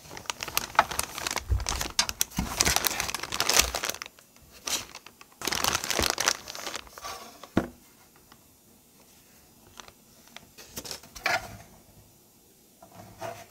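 Plastic packaging wrap crinkling and rustling while a metal network switch is lifted and turned over in its cardboard box. The rustling is densest in the first four seconds and again around six seconds. There is a sharp knock about seven and a half seconds in, and only scattered rustles after that.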